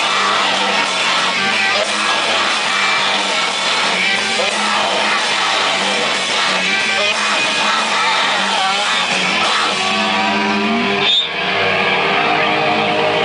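Rock band playing live and loud: distorted electric guitar over a drum kit with cymbals. About eleven seconds in the playing breaks off for an instant, then held notes ring on.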